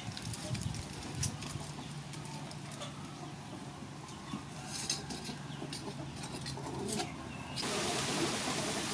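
Aluminium foil crinkling in scattered short crackles as hands press and fold it around a whole fish on a wire grill rack.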